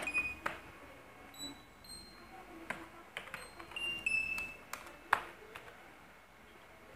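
Computer keyboard being typed on: irregular sharp key clicks, a few with a brief high ping.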